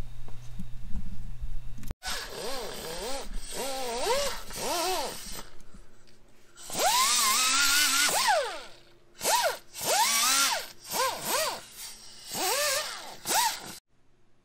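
Cordless impact wrench tightening suspension bolts at a rear wheel hub, run in a dozen or so short trigger pulls, each motor whine rising and falling in pitch, with one longer run about halfway through.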